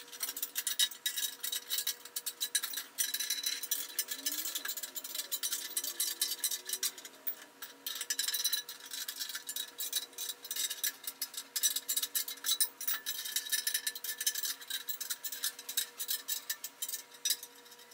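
Half-inch wrenches tightening nuts and bolts: rapid, irregular metallic clicking and clinking.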